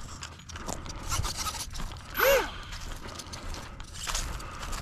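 A small RC plane's electric motor and propeller are throttled up and back down once, about two seconds in. The result is a short whine that rises and falls in pitch, likely a pre-launch throttle test. Faint handling and rustling noises run around it.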